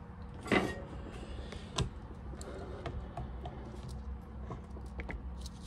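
Small clicks and ticks of hands working a thin wire with hand tools while its end is stripped, with a sharper click about half a second in and another just under two seconds in.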